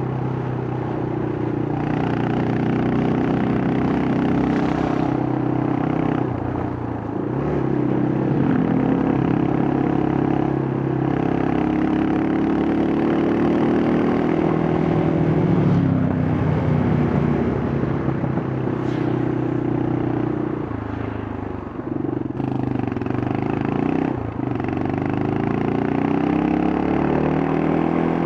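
Yamaha Scorpio's single-cylinder four-stroke engine running under way through its exhaust, its pitch rising and falling repeatedly as the rider accelerates, shifts gears and eases off the throttle.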